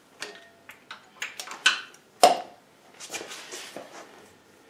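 Metal hand tool clinking and tapping against metal parts: a string of irregular light clicks, the loudest a ringing clink a little past two seconds in.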